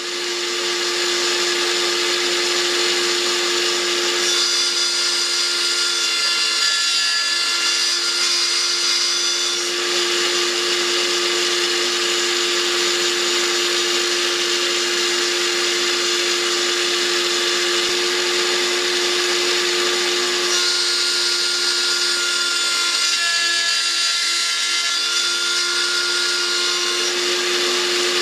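Small benchtop milling machine running steadily at speed, its end mill cutting a metal model-railway rail profile clamped to a pattern. A higher, ringing whine comes in twice, for several seconds from about four seconds in and again from about twenty seconds in, as the cutter bites into the rail.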